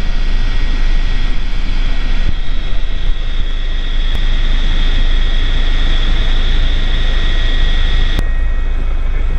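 Helicopter in flight heard from inside the cockpit: a steady high engine whine over the rumble of the rotor and air noise. The whine drops away suddenly about eight seconds in.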